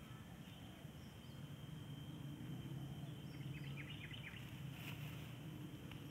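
Faint outdoor ambience: a low steady rumble under a thin, steady high insect drone, with a quick run of faint bird chirps about three and a half seconds in and a brief rustle near the five-second mark.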